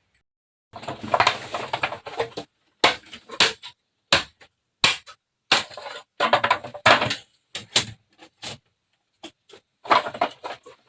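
A run of irregular knocks, clatters and scrapes of hard objects being handled and moved about, with short silent gaps between them.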